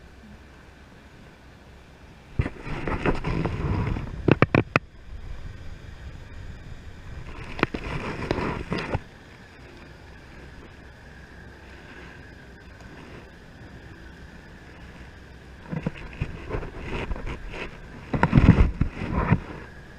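Wind buffeting the microphone in three rough gusts of one to four seconds, over a steady low rush, with a few sharp clicks inside the gusts.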